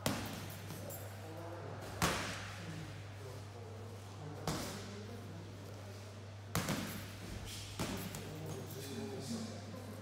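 10 oz boxing gloves punching a hanging heavy bag: five hard single punches about two seconds apart, each a sharp smack with a brief echo, and a few lighter knocks near the end.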